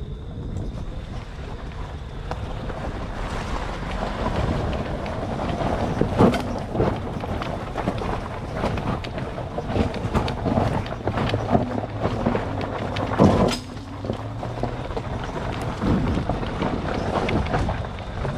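Electric ATV riding a woodland trail: tyres rolling and crunching over the forest floor with frequent snaps and knocks, two of them loud, and wind on the microphone. The four hub motors give only a low steady hum underneath.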